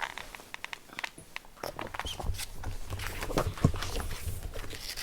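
Handling noises: scattered small clicks, taps and light rustling, with a low hum joining about two seconds in.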